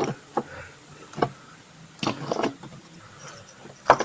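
Metal parts and hand tools being handled in an engine bay: a few sharp clinks and knocks, single ones about a second apart and a short cluster about two seconds in.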